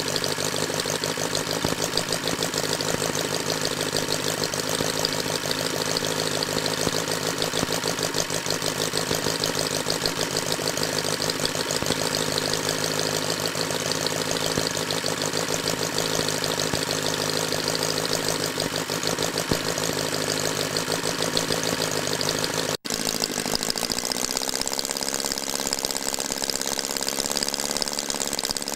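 L C Mason Mastiff 25cc horizontally opposed four-stroke model engine running steadily with a rapid, even firing beat. About 23 seconds in the sound drops out for an instant and returns with less bass.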